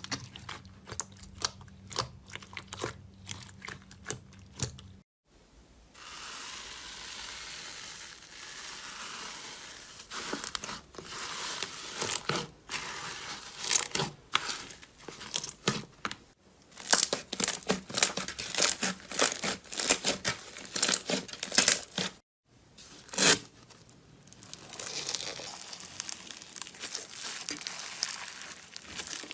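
Slime being squeezed, poked and stretched by hand, making dense crackling and popping in bursts, with stretches of even sticky hiss between them. The sound changes abruptly several times as one slime gives way to another.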